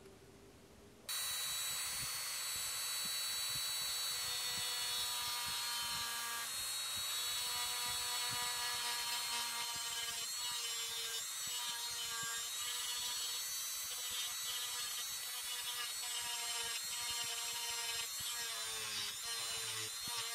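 Handheld rotary tool with a small carving bit running at high speed, cutting into a white oak saxophone mouthpiece blank. It is a steady high whine that starts suddenly about a second in, and its pitch wavers in the second half as the bit bites into the wood.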